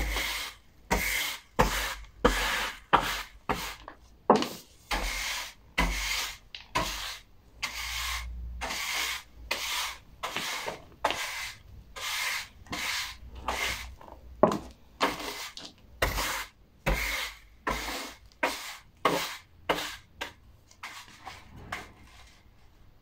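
High-heeled pumps scraping and grinding sawdust against a hard floor, with a bristle broom sweeping the sawdust. It comes as a long run of irregular short scrapes, one or two a second, with an occasional sharp tap of a heel.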